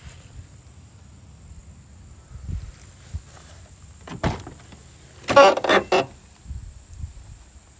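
An old Cadillac hearse's car door being opened: a sharp latch click about four seconds in, then a short rattling scrape as the door swings open, with a few soft thumps around it.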